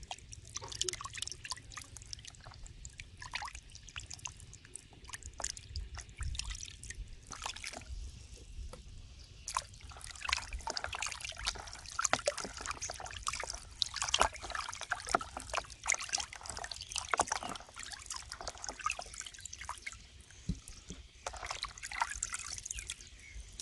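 Water splashing and sloshing in a plastic basin as hands rub and turn raw chicken drumsticks to wash them, with irregular splashes and drips that grow busier about halfway through.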